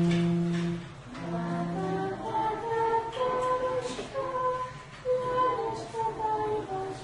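Unaccompanied singing of a slow melody in held notes: two long low notes, then the tune climbs to higher notes and moves stepwise.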